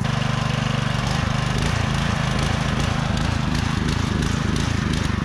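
Simpson PowerShot 3600 PSI pressure washer's gas engine running at full throttle, bucking and surging so that its pitch wavers unevenly from about a second in, with a crackle in the exhaust. The owner suspects a clogged main jet in the carburettor.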